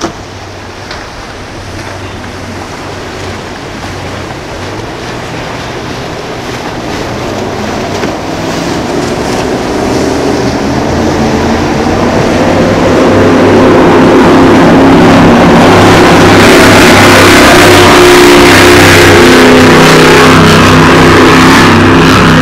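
Offshore performance powerboat's engines running hard, with water rushing and spray off the hull. It grows steadily louder over the first half and then holds loud.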